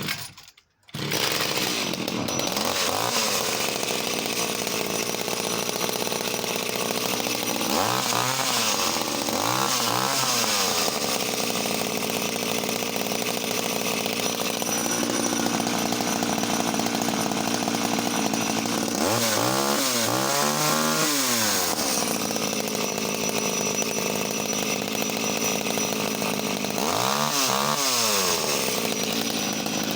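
Vintage Danarm 1-36 MkIII two-stroke chainsaw starting about a second in and then running, idling steadily and revved up and back down to idle a handful of times.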